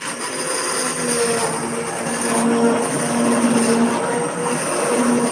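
Hand-held immersion blender motor running steadily with its blade down in a pot of cooked lentil soup, pureeing the lentils: a steady motor hum with a high whine, coming up to full speed right at the start.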